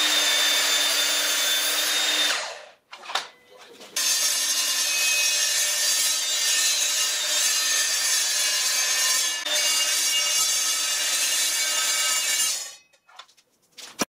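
Evolution R255SMS DB+ multi-material sliding mitre saw running and cutting, first through a block of timber and then, after a short pause, through a steel box-section tube. The blade runs with a steady high whine over the cutting noise, and the cuts stop about two seconds before the end.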